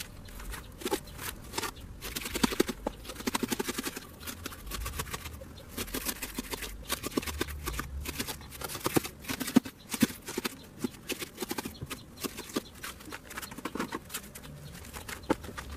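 Steel trowel scraping and tapping over wet concrete in a garden-path mould, making a run of irregular clicks and short scrapes that is thickest a couple of seconds in.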